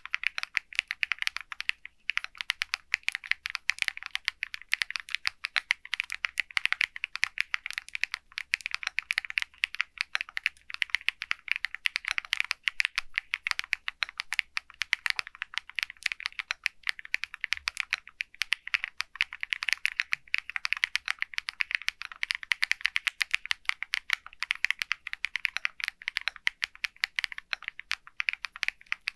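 Fast, continuous typing on an SPM AL66A full-aluminium 66-key mechanical keyboard with PBT keycaps: a dense run of crisp keystroke clacks. There is a brief pause about two seconds in.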